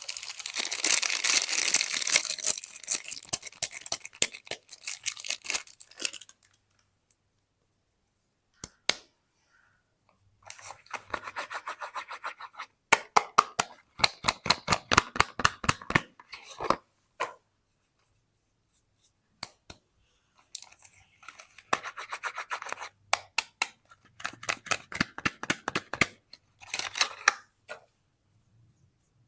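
Soap packaging being unwrapped and handled: crinkling, tearing and scraping in three stretches of several seconds each, with short pauses between them.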